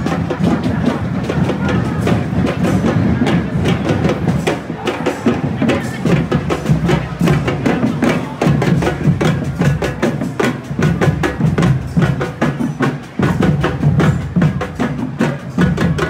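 Parade drum band playing: a loud, quick, steady beat of many drum strikes.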